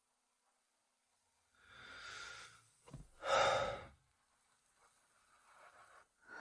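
A person's breathy exhales or sighs: a softer one a couple of seconds in, then a louder, short one about three seconds in, with quiet between.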